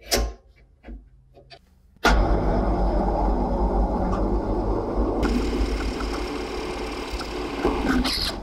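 A sharp metal clack and a few lighter knocks as the vise screw is tightened. About two seconds in, the drill press starts abruptly and runs steadily while its twist bit cuts into the steel bar, with a harsher, hissier cutting noise joining a little past halfway.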